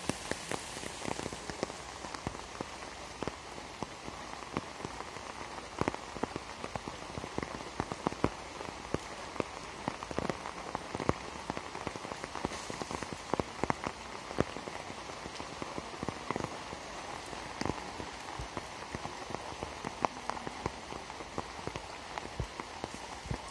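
Heavy rain falling steadily on a pond and leafy plants, an even hiss dotted with many sharp taps of single large drops close by.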